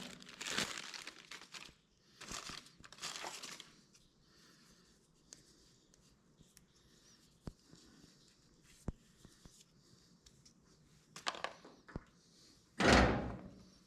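Plastic packaging crinkling and tearing as new fuel pump parts are unwrapped, in a few rustling bursts with light clicks between them and a louder rustle near the end.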